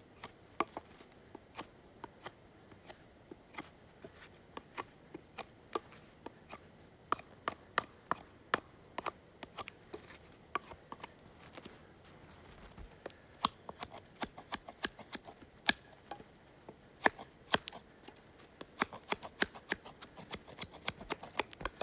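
Terava Skrama knife blade shaving and stripping bark off a pine branch in short strokes: a run of sharp irregular scrapes and clicks, coming faster and louder in the second half.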